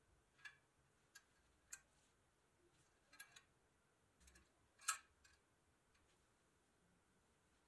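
Faint metallic clicks and taps of a thin metal rod knocking against the pressed-steel body of a 1930s Metalcraft toy truck as it is threaded through, a handful of them spread out, the loudest about five seconds in.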